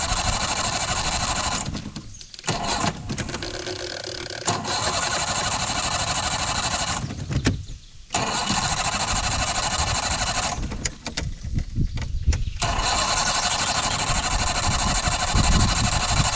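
An old outboard boat motor running, with the sound cutting out sharply three times: a bit after two seconds, around seven and a half seconds, and for nearly two seconds around eleven seconds in. The motor has been stalling whenever its primer is pushed in, a fuel-flow trouble the owners put down to the fuel tank vent.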